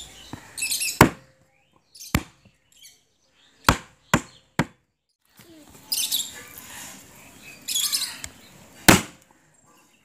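Cleaver chopping down onto a wooden chopping board while cutting the fins off a needlefish: about six sharp chops at uneven intervals, the last one among the loudest.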